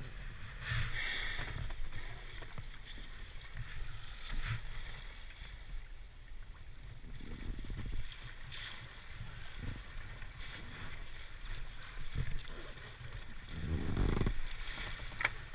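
Water sloshing and splashing against the side of an inflatable boat over a steady low rumble, with louder splashes now and then.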